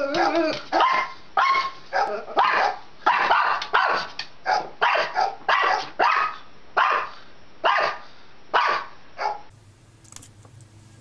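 Small long-haired white dog barking over and over in short barks, about two a second. The barking cuts off abruptly about nine and a half seconds in, leaving only a faint low hum.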